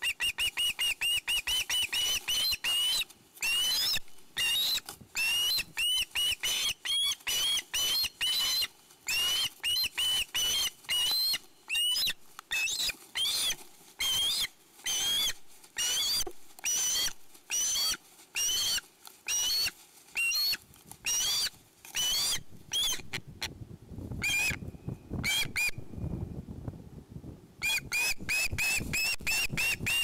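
Juvenile osprey squealing for food in a rapid string of shrill piping calls, several a second. The calls break off for a few seconds near the end, with a low rustle, then start again.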